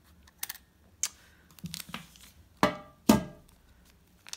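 Handling noise: a few light clicks, then two sharp knocks about half a second apart, each with a short ringing, as a compact camera is set down on a glass tabletop.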